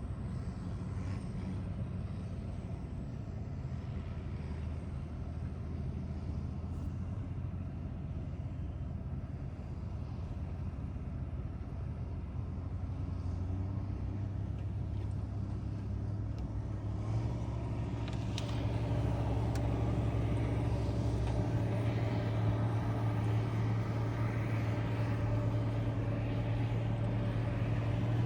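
Heavy snow-clearing machinery running, a backhoe loader or snowcat diesel engine giving a steady low hum. About two-thirds of the way through it gets louder and fuller, as the engine picks up under load.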